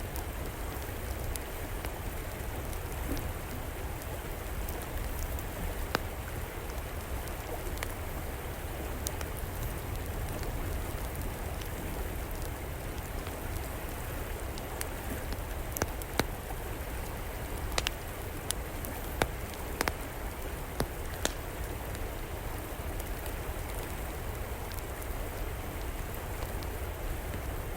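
Steady rushing of a flowing river, with sharp crackles and pops from a wood fire burning in an outdoor fireplace scattered through it, a few at a time.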